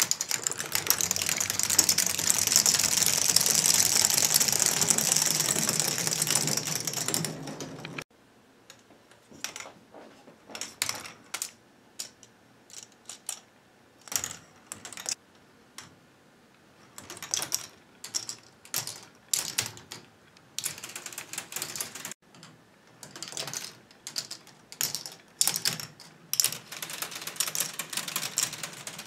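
K'nex ball machine: a dense, continuous plastic clatter for about the first eight seconds that cuts off abruptly, then a long run of separate clicks and clacks as plastic balls roll and drop through the K'nex tracks.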